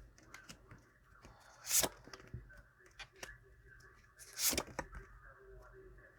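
Tarot cards being handled: shuffled and laid out, with two louder, short card snaps about two and four and a half seconds in and faint clicks of the cards between.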